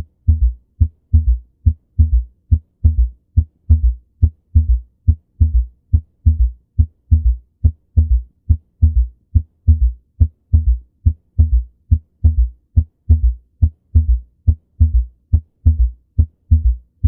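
Recorded human heart sounds: a steady, regular lub-dub rhythm of short, low thumps, which stops abruptly near the end.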